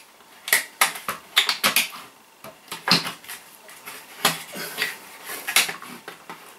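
Irregular sharp clicks and light metallic clatters, several a second, as small spring-ended parts are handled and pushed into a metal light-fitting housing.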